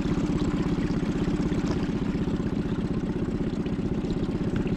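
Small outboard motor running steadily at low speed, an even, fast engine pulse.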